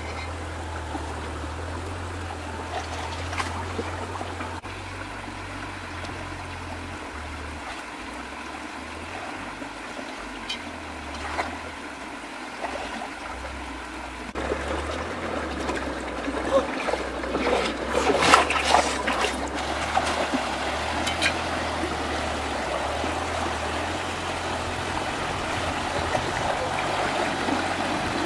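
Shallow rocky stream trickling and burbling over stones, louder from about halfway through, with a short spell of splashing in the water a little past the middle.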